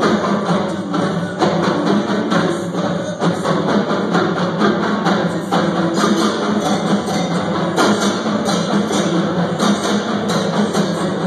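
High school drumline playing a fast percussion piece on marching drums and stand-mounted cymbals: a dense, steady stream of drum strokes and cymbal hits.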